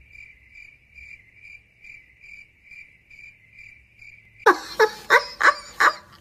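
Cricket chirping sound effect, the stock 'awkward silence' crickets: a thin high chirp repeating evenly, about two to three times a second. About four and a half seconds in, it cuts off and loud voices break in.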